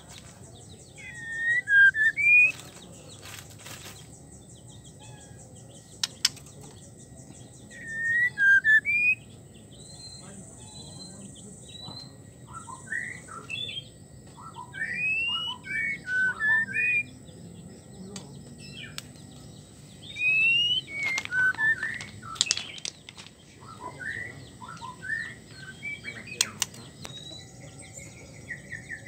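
White-rumped shama giving bursts of short, curving whistled notes every few seconds, with a few sharp clicks between. This is the 'wik-wik' call of a female in breeding condition calling to males.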